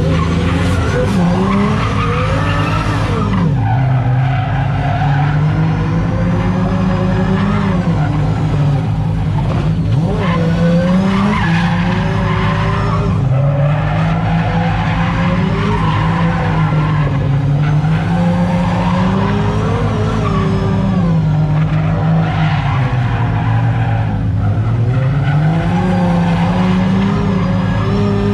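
Drift car's engine revving up and down in repeated swells as it slides in circles, its rear tyres spinning and squealing on the asphalt.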